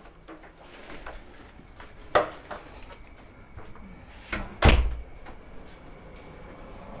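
A few knocks and clicks, as of objects being handled or a door or drawer being moved: a sharp knock about two seconds in and a heavier thump about two-thirds of the way through, the loudest sound.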